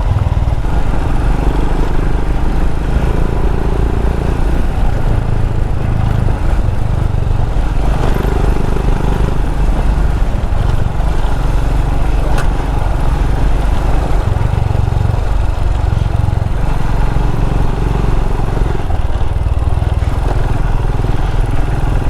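Royal Enfield Himalayan's single-cylinder engine running steadily while riding along a dirt track, its note rising and falling a little with the throttle.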